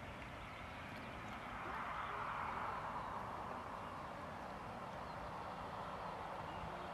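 Boeing 747-200 freighter's jet engines running as the airliner rolls out along the runway after landing. It is a steady rushing noise that swells about two seconds in.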